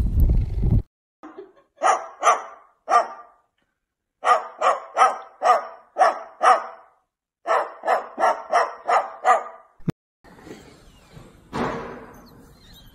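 A cockatoo imitating a dog's bark: short, clipped barks in three quick runs, about eighteen in all.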